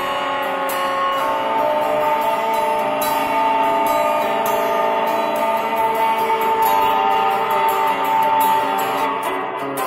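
Guitar being played: held, ringing notes layered over repeated picked attacks.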